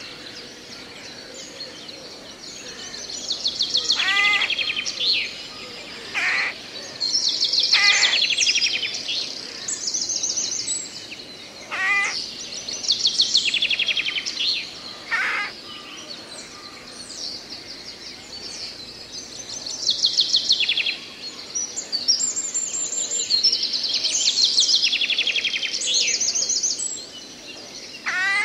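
Woodland songbirds singing: repeated rapid high trills, with short sharp calls sweeping down in pitch between them, over a faint steady hiss of background noise.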